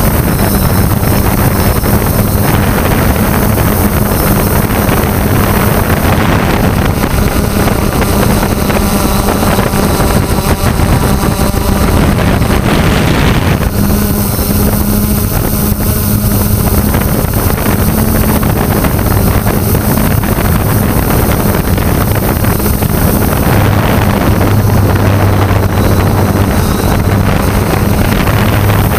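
3DR Solo quadcopter's four electric motors and propellers whirring loudly and steadily as it lifts off and climbs, heard through its onboard GoPro, with wind buffeting the microphone.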